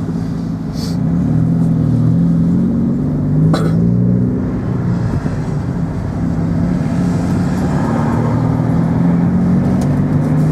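Car engine running while driving, with its note rising and falling gently. A single sharp click comes about three and a half seconds in.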